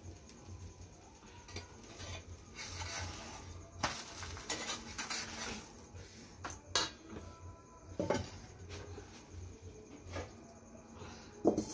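A metal cooking pan and utensils clattering as the pan is handled over a cooking fire: scattered sharp clinks and knocks, the loudest near the end, with a short stretch of hiss in the middle.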